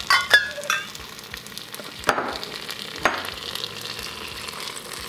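Chicken stock poured from a metal measuring cup into the hot pot of a Ninja multi-cooker, the rice sizzling as it goes in, with two louder hissing surges about two and three seconds in. A few light clinks in the first second.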